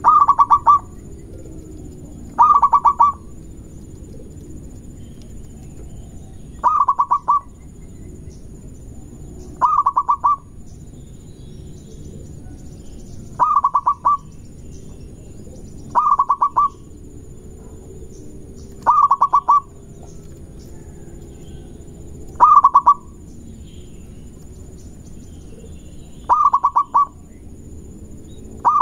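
Zebra dove (perkutut) singing: a short rolling coo made of quick pulses, repeated about ten times at intervals of roughly three seconds, over a steady low background noise.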